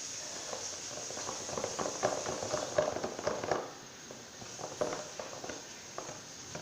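Glue and baking-soda slime mixture being stirred in a container: irregular sticky clicks and taps, busiest in the first half and sparser after about three and a half seconds.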